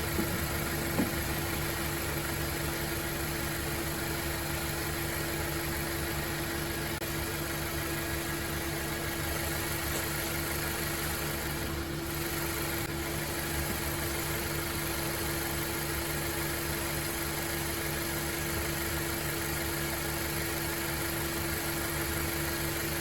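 A 2017 Honda CR-V's 1.5-litre turbocharged four-cylinder engine idling steadily once warmed up. There is one light click about a second in.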